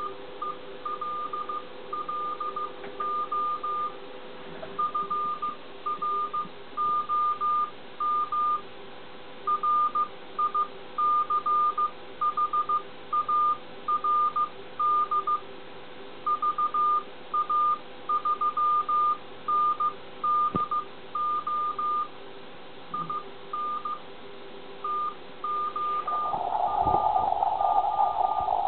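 Morse code (CW) received off the air on a ham radio transceiver: a single steady-pitched beep keyed in dots and dashes, spelling out a greeting with the call sign VA3NDO. Fainter steady whistles sit underneath, and about 26 seconds in a louder band of rushing noise comes up beneath the keying.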